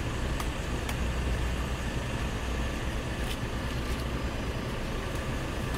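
Steady low rumble of road traffic, with a few faint sharp clicks as a knife cuts into a spiky durian husk.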